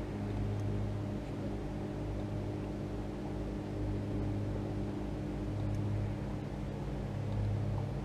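Boat motor running steadily at low speed, a low even hum.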